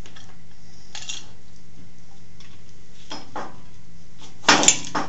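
Metal lathe parts clinking and knocking as the headstock, spindle and pulley are handled and fitted together: a few light clicks, then a louder clatter of metal on metal near the end.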